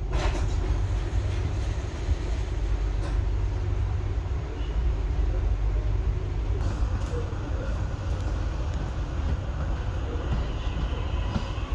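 Dubai Metro driverless train running, heard from inside the carriage: a steady low rumble of wheels and motors, with a faint rising whine near the end.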